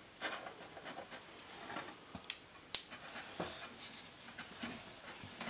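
Light handling of wooden frame bars and a pen marking them: soft rubbing and scattered light clicks and taps, with two sharper clicks about half a second apart a little over two seconds in.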